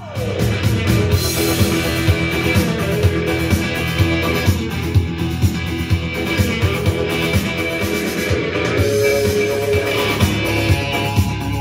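Rock music with guitar and a steady drum beat, played through a Pioneer SA-6500 II stereo integrated amplifier and speakers.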